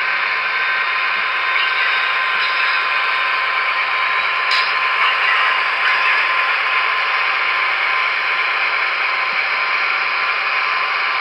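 HO-scale Broadway Limited Imports GP30 model's sound decoder playing a diesel locomotive's running engine sound through its small onboard speaker: a steady hum with a few constant tones and very little bass.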